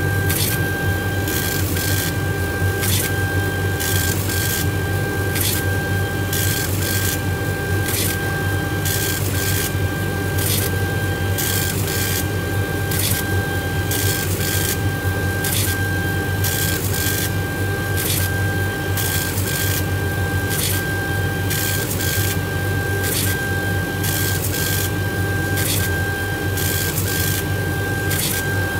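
Laser engraving machine raster-engraving a beech-wood name plate. The head sweeps back and forth with a steady whine that breaks briefly at each reversal, about once a second, over a constant low hum.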